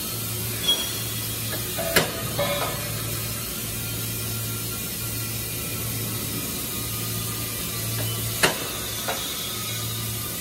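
Steady low machine hum in a metal fabrication shop that comes and goes, with a few sharp metal knocks from work on the steel table; the loudest knocks come about two seconds in and near the end.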